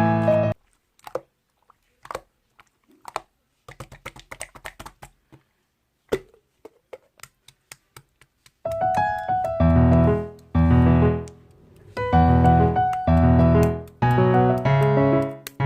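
Piano background music that breaks off about half a second in, leaving a stretch of scattered soft clicks, then comes back loudly about nine seconds in with repeated chords.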